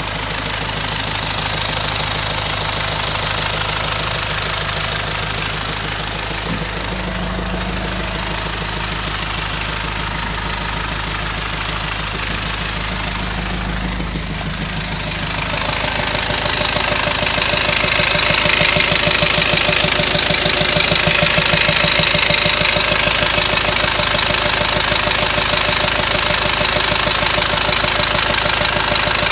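BMW E90's ZF 6HP19 six-speed automatic transmission knocking under the steady running of the engine, a sign of a fault in the gearbox. The sound gets louder about halfway through.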